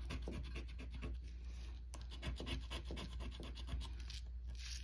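A scratcher tool scraping the coating off a scratch-off lottery ticket in rapid repeated strokes.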